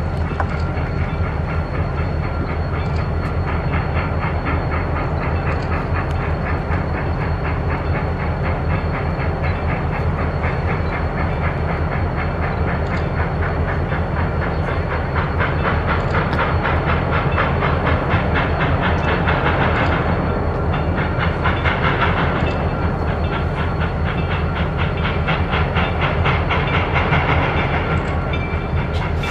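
Steam locomotive working, its exhaust chuffing in a steady, rapid beat over a low rumble, with hissing steam that swells about two-thirds of the way through.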